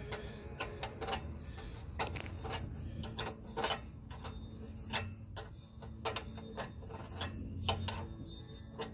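Irregular clicks and light metallic clinks of hand tools and small engine parts being handled during repair work, with two sharper knocks a little past a third of the way in and about halfway.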